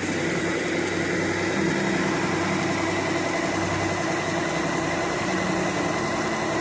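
Kubota DC104 combine harvester running steadily: a dense machine drone with a steady high whine over it.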